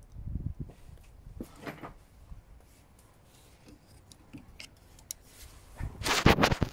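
Handling noise: clothing rubbing and rustling against the phone's microphone, loudest about six seconds in as the phone is swung down, with a few faint clicks and knocks before it.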